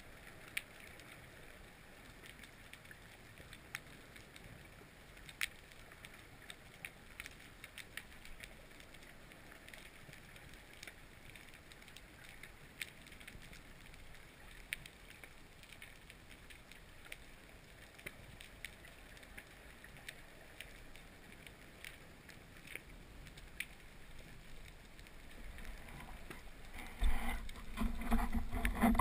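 Underwater ambience picked up by a dive camera: a faint steady hiss scattered with sharp clicks. Near the end it gives way to a louder rush of water movement.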